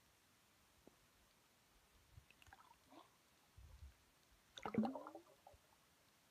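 Muffled underwater sound: a few soft knocks and gurgles, then a short burst of bubbles a little past the middle.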